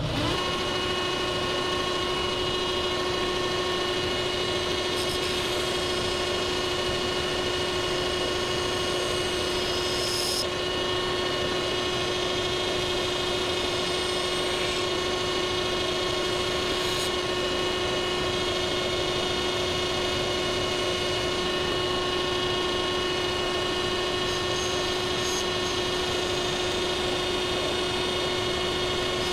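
Shop-built KMG-clone belt grinder running at a steady pitch, a constant whine with several fixed tones, coming in suddenly at the start.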